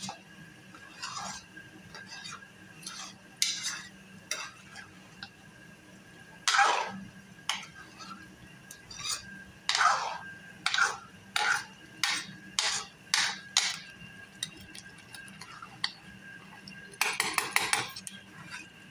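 Metal ladle scraping and knocking against the pot while stirring a thick chicken, pea and potato curry, in irregular strokes with a quick run of scrapes near the end. The masala is being fried down until the oil separates.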